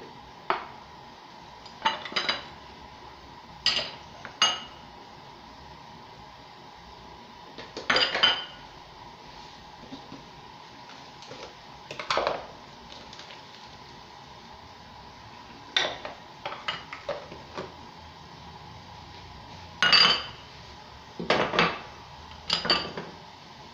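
Kitchen dishes and cutlery clinking and knocking in short clusters every few seconds, some clinks ringing briefly, with the loudest near the end.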